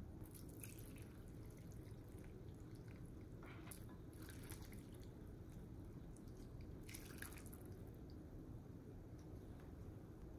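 Faint wet sounds of food and liquid going into a ceramic ramen bowl: three short splashy bursts as chopsticks settle bean sprouts on the noodles and the vegetable topping and miso soup are added, the last about seven seconds in.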